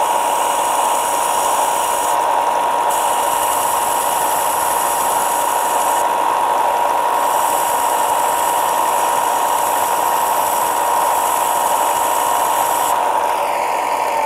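Electric bench belt sander with a 4 x 36 inch 80-grit belt running with a steady hum, as a tungsten electrode is ground to a point against the belt in three stretches with short pauses. The motor starts to wind down at the very end.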